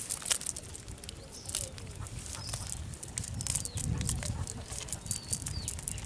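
Scattered clicks, rustles and wet pats of a nylon cast net being handled while small fish are picked out of it on wet mud, with a low rumble in the second half.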